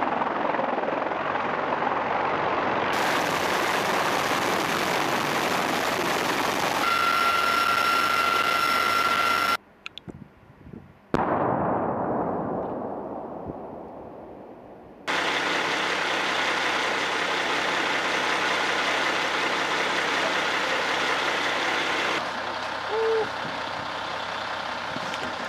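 Heavy-lift helicopter's rotor and turbines: a steady rushing noise with a high whine. After a brief hush, a single distant artillery shell explosion, a sudden boom that rolls away over a few seconds, followed by steady rushing noise again.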